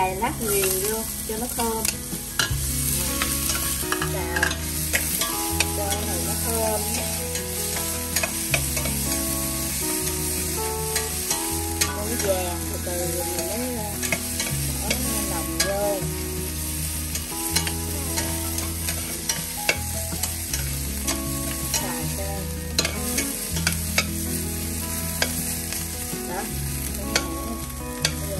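Minced aromatics and sliced ginger sizzling in hot oil in a stainless steel pot, stirred with a metal spoon that clicks and scrapes against the pot many times. Underneath, a low hum changes pitch every second or two.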